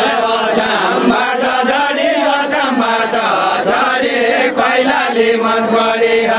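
Voices chanting a Nepali Deuda folk song in long, held, wavering lines.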